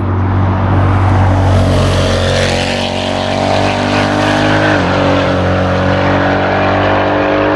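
Racing car's engine held at high revs under hard acceleration, with a quick break in pitch about five seconds in as it shifts gear.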